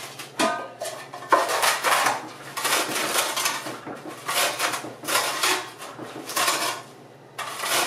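Pork rinds crunching and crackling inside a zip-top plastic bag as a metal loaf pan is pressed and ground over them on a wooden cutting board, in repeated strokes about once a second, crushing them into crumbs.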